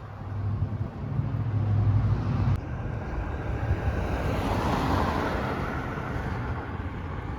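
Road traffic: a vehicle passing, its tyre and engine noise swelling to a peak about halfway through and fading slowly.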